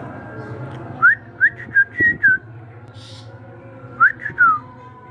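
Young long-tailed shrike (cendet trotolan) giving short whistled 'tet' notes: a quick run of about five about a second in, then two or three more near the end, each note sliding up or down in pitch.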